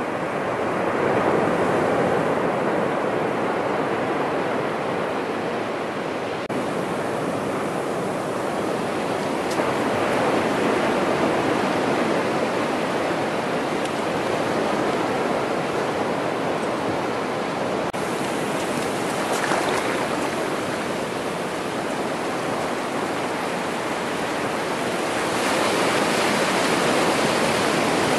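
Shallow surf washing in over flat wet sand at the water's edge: a steady hiss and wash of breaking waves that swells about a second in and again near the end.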